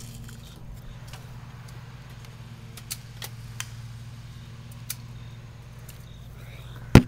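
A steady low hum with a few faint sharp clicks in the middle and one loud sharp knock near the end.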